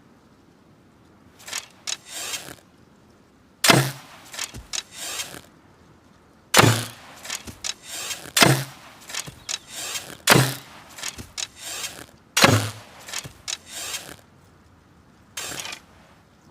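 Hunting bow being shot repeatedly: five sharp string-release snaps about two seconds apart, each with a low thump and a short trail of rattling clicks. Quieter handling clicks come before the first shot and once more near the end.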